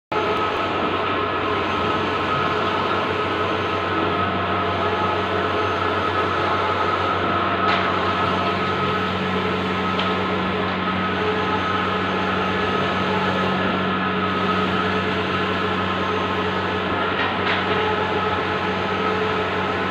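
Bluewin large-format outdoor printer running: a steady mechanical whirr with a constant low hum and a few faint clicks.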